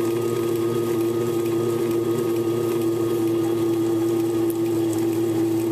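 Heavy-duty tabletop stone grinder running with a steady hum, its electric motor turning the drum as the grinding stones roll over the stone base, crushing raw sunflower seeds into seed butter.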